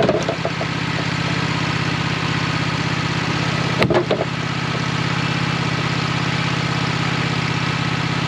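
Sawmill engine running steadily, with two sharp knocks, one at the start and another about four seconds later.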